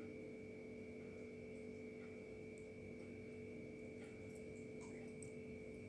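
Faint steady electrical hum made of a few constant tones, with a few faint, soft ticks scattered through it.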